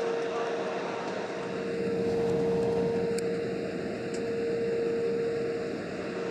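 Steady airliner cabin drone, heard from a window seat, with a constant humming tone running through it. The engines and cabin air are running while the jet sits on the ground waiting to park at the gate.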